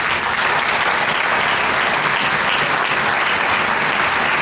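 Audience applauding: dense, steady clapping that breaks out all at once and keeps going without letup.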